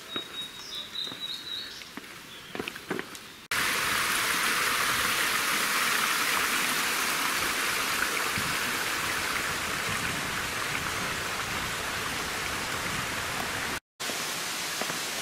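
Footsteps on stone steps and a bird's brief high call, then a steady rush of a mountain stream that starts abruptly about three and a half seconds in and runs on to near the end.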